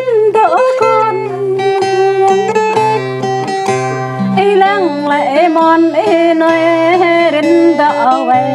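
Acoustic guitar playing a Jrai song with a voice singing long held notes that bend and waver in pitch.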